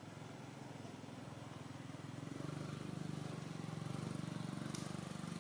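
Low engine hum of a passing motor vehicle, growing louder from about two seconds in, with one short tick near the end.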